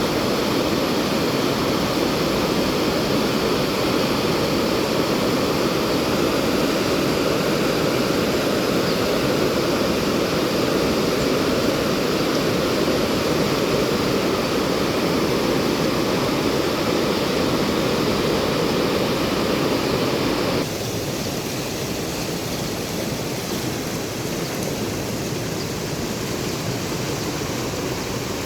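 Fast-flowing water rushing steadily, as from a swollen stream or floodwater. About two-thirds of the way through it drops suddenly to a somewhat quieter, thinner rush.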